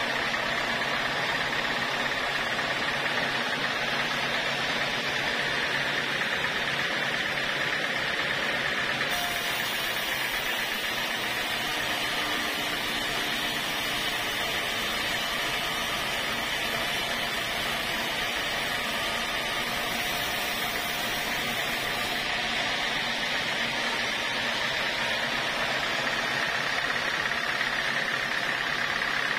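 Band sawmill running steadily, its blade ripping lengthwise through an acacia beam; the cut gets hissier and brighter for a stretch in the middle.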